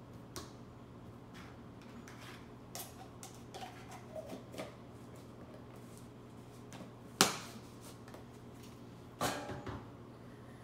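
Scattered clicks and scrapes of a knife working in an open peanut butter jar, then a sharp knock about seven seconds in and a short clatter about nine seconds in as the jar and knife are handled and set down, over a low steady hum.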